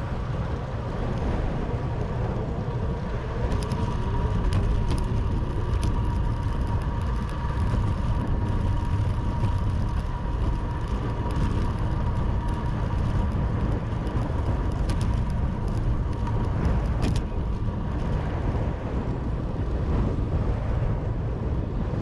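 Steady low rumble of wind and road noise from a bicycle ride, buffeting the camera's microphone, with a few faint ticks.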